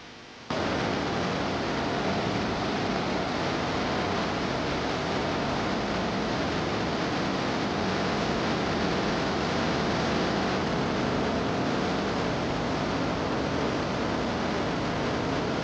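A loud, steady rushing noise with no distinct tones or rhythm that cuts in abruptly about half a second in.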